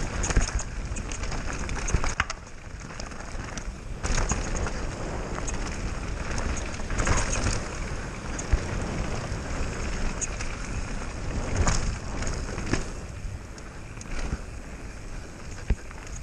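Mountain bike running fast down a dirt trail: a steady tyre rumble over the ground, with many sharp knocks and rattles as it hits bumps, and wind buffeting the microphone.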